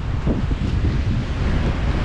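Wind blowing across the microphone, a steady low rumble that flutters.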